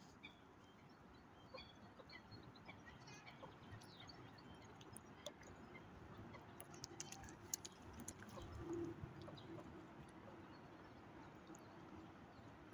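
Quiet outdoor ambience with faint, scattered bird chirps and a few soft clicks, over a faint low hum that swells about nine seconds in.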